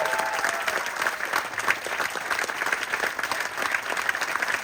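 Audience applauding steadily, with dense clapping.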